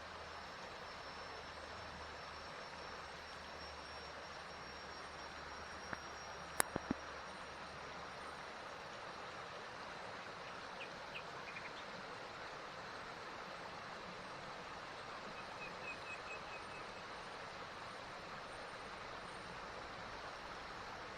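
Forest stream flowing, a steady rush of water. About six seconds in, a short cluster of sharp clicks is the loudest sound, and a brief run of faint high chirps comes later.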